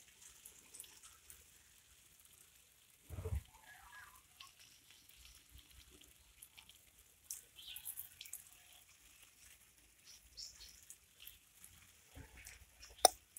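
Faint rustling and scuffling of two cats play-fighting on a leaf-strewn brick path, with one low thump about three seconds in. Near the end a fast run of sharp clicks begins.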